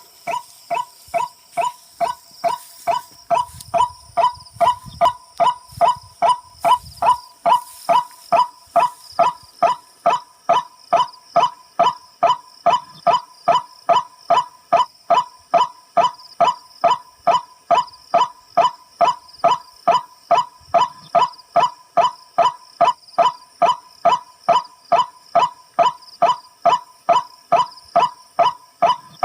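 Tikling (rail) call: one short honking note repeated evenly about twice a second, without a break.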